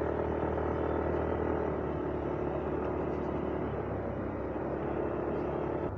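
Yamaha Aerox V2 scooter's single-cylinder 155 cc engine running at a steady cruise, with steady road and wind noise.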